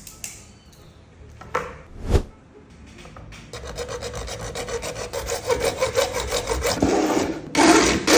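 Two knocks, then a fast, even rasping rub with a faint steady hum under it, and a louder scrape near the end.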